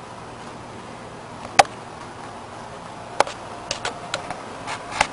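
Handling noise: a few sharp clicks and light knocks over a low steady background, the loudest about a second and a half in, another about three seconds in, then a quicker cluster of lighter clicks near the end.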